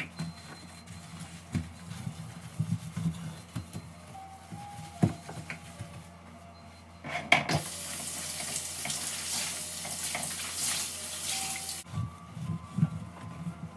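Scrubbing and wiping on the glass top of a gas hob with a sponge and cloth, with small knocks. About halfway through, a kitchen tap runs for about five seconds, then stops, and the wiping goes on.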